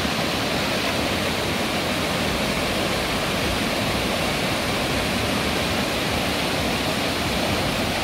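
Steady rushing wind noise buffeting the microphone, with a fluttering low rumble underneath, as on a moving motorbike.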